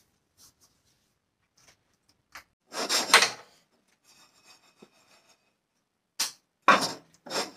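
Cookware being handled while a pancake in a frying pan is turned over: a scrape about three seconds in, then a few sharp clattering knocks of the pan and lid near the end.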